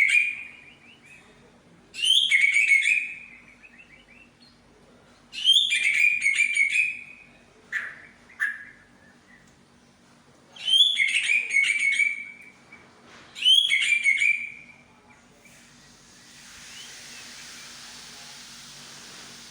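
White-rumped shama (murai batu) singing in loud bursts of rich whistles and chirps: five phrases of a second and a half to two seconds each, with two short single notes between. Near the end the song stops and a steady hiss is left.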